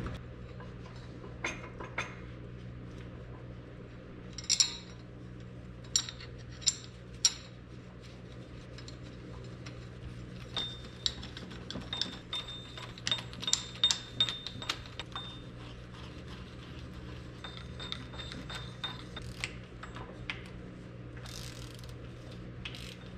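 Hand ratchet wrench clicking in quick runs as four bolts holding the main shaft in an International 1066 speed transmission are run down and tightened. A few separate sharp metal clinks come before the ratchet runs.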